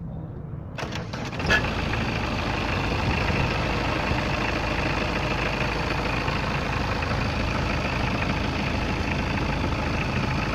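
Volkswagen Golf engine starting about a second and a half in, then idling steadily, running with the newly fitted power steering pump.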